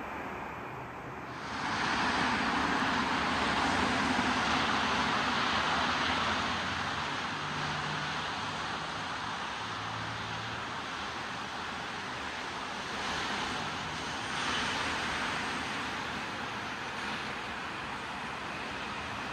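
Steady rushing vehicle noise at a commuter rail platform. It steps up suddenly about a second and a half in, is loudest for the next five seconds, then settles. Near the end a Metro-North M8 electric train approaches from a distance.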